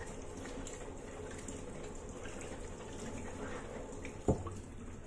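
Kitchen tap running steadily, water splashing over a bitter gourd as it is rubbed clean by hand and falling into a metal pot in a stainless-steel sink. A single sharp knock a little past four seconds in.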